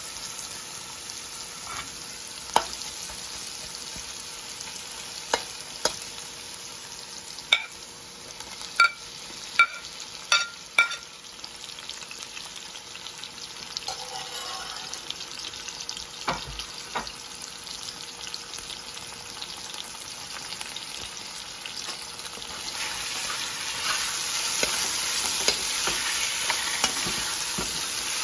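Vegetables sizzling and frying in a pan while being stirred, with a utensil knocking sharply against the pan about ten times in the first half. The sizzle grows louder about 23 seconds in.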